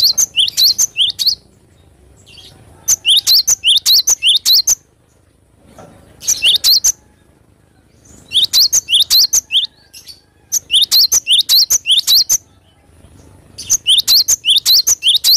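Cinereous tit (gelatik batu) singing in rapid bouts of sharp, rising chirps, about six or seven notes a second. There are six bouts of one to two seconds each, with short pauses between them.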